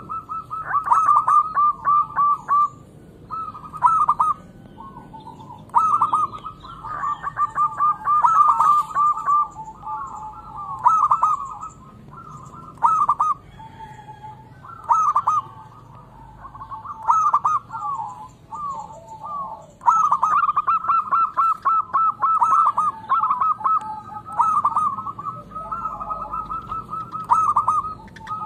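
Zebra dove (perkutut) cooing: phrases of quick, rippling coos, repeated one after another with short pauses between them.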